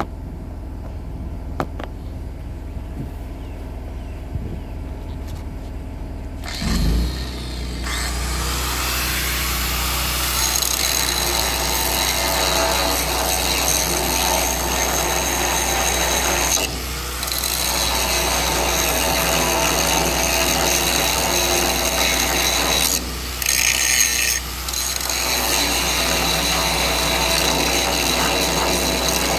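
Electric angle grinder spinning up about seven seconds in, then grinding steadily into a cracked weld seam on a steel tank to gouge the cracks out. It briefly eases off twice, over a steady low hum.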